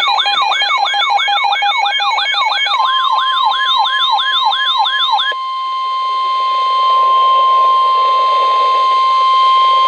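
Several siren sounds at once, rapid repeating sweeps at about three a second along with alternating two-note tones, until about five seconds in. From about three seconds in a steady single-pitched alarm tone joins them, the NOAA Weather Radio 1050 Hz warning alarm tone. It then sounds on alone over a faint radio hiss.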